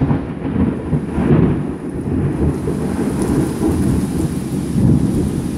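Loud, low, rolling thunder rumbling through heavy rain, easing slightly near the end.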